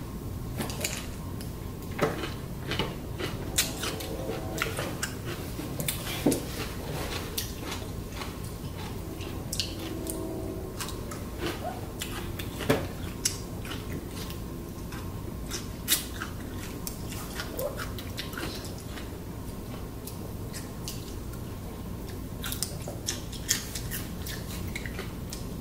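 Mealtime eating sounds: scattered clicks and clinks of utensils against dishes, with chewing.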